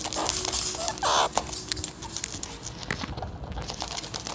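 Meerkats' claws scratching and clicking on a basket of woven straps as they dig and shuffle about, a busy run of small taps and scrapes, with one brief louder noise about a second in.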